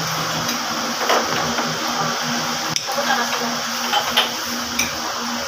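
Metal fork and spoon scraping and clinking against a plate as meat is cut, with a few sharp clinks over a steady background noise.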